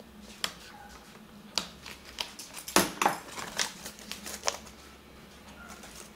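HP ProBook laptop keyboard being handled and laid on the laptop's palm rest: about eight light plastic clicks and taps over four seconds, the loudest a little under three seconds in.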